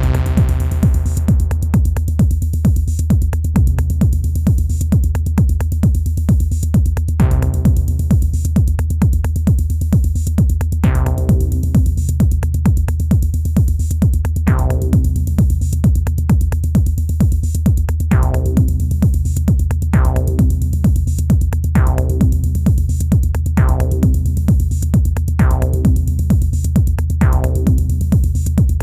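Improvised techno played live on an Elektron Analog Rytm drum machine: a steady heavy kick and bass with fast hi-hat ticks. About a quarter of the way in, a pitched stab with a quickly fading bright edge joins and repeats about every two seconds.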